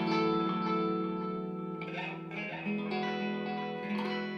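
Clean electric guitar chords ringing out through a tape-style delay and a hall reverb with its decay turned low, the notes sustaining and overlapping, with a new chord struck about two and a half seconds in and another near the end.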